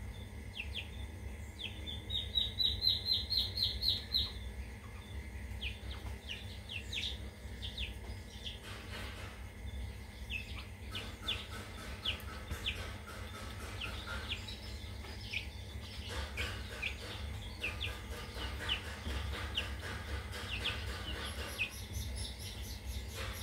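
Birds chirping in short repeated high notes, with a quick trill about two seconds in, over a low steady hum.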